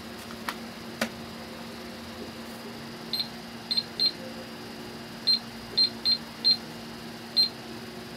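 Pink toy cash register's built-in calculator beeping as its keys are pressed: about eight short, high beeps at uneven spacing in the second half. Before them, two sharp plastic clicks about half a second and a second in.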